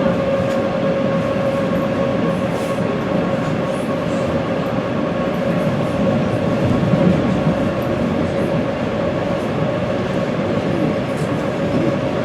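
ED4M electric multiple unit running steadily between stations: a dense, even rumble with a steady whining tone that holds its pitch.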